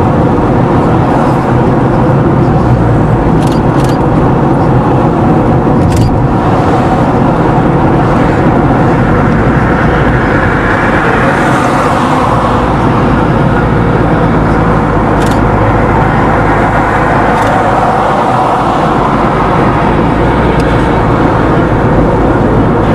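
A car driving along, with steady road and engine noise and a few light clicks.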